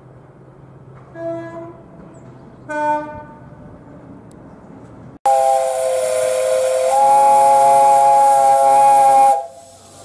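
Two short, faint toots, then the whistle of BR Standard Class 7 steam locomotive 70000 Britannia blowing for about four seconds over the hiss of escaping steam. Its several tones sound together, sag in pitch and come back up, then hold steady and cut off sharply.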